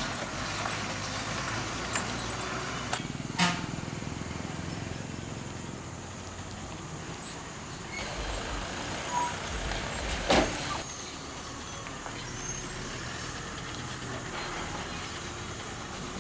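Heavy vehicles, buses and trucks, running over a potholed road, engines rumbling steadily, with two sharp knocks, the louder one about ten seconds in.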